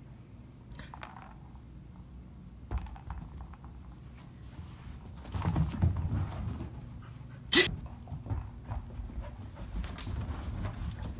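Dog panting and scuffling during rough play, busiest around six seconds in, with one short sharp sound about a second and a half later.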